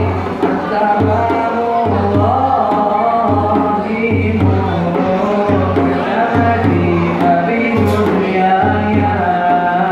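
Male voices singing a nasheed, one through a microphone, over a hand-held frame drum beaten in a steady low rhythm.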